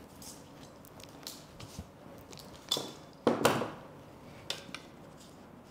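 Small clicks and taps of pattern-drafting tools handled on paper while marking measurements, with two louder knocks a little past the middle.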